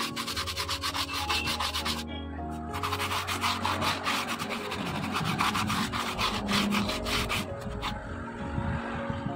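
Rapid back-and-forth hand scrubbing with a cloth on the rear drum-brake backing plate of a Maruti Suzuki Carry. It comes in two spells, with a short break about two seconds in, and dies down about seven seconds in.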